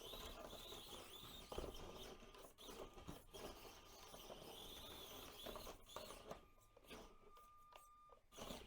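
Faint whine of an Axial SCX24 Deadbolt micro crawler's small electric motor, wavering up and down in pitch as it works its way out of a stuck spot, with scattered small clicks and knocks.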